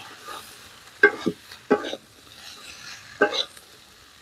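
Flat metal spatula scraping and tossing chunks of jackfruit around a metal kadai during stir-frying, a few sharp scrapes over a faint sizzle of the spiced masala.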